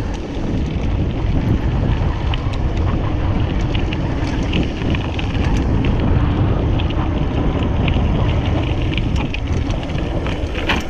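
Mountain bike descending a rough asphalt track: wind buffeting the microphone over a steady rumble of tyres on the road, with frequent small clicks and rattles from the bike.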